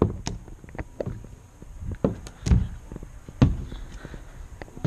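Irregular knocks and thumps, several over a few seconds, from someone climbing a playground play structure: hands and feet bumping the plastic climbing wall and the perforated metal deck, with the handheld camera knocking about.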